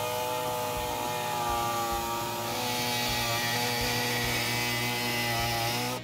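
Reciprocating body saw buzzing steadily as it cuts through the dash trim piece, its pitch shifting a little about two and a half seconds in as the load on the blade changes.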